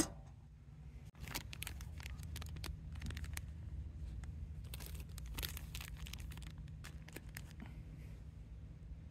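A single sharp knock with a short ring at the start, then plastic snack wrappers crinkling in short bursts as wrapped sweets are handled and set down on a metal mesh table. A steady low rumble runs underneath.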